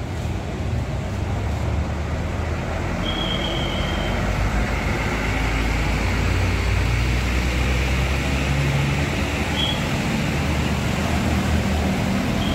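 Tour bus diesel engine running close by, a low rumble that grows louder a few seconds in. A short high steady tone sounds about three seconds in and a briefer one near the end.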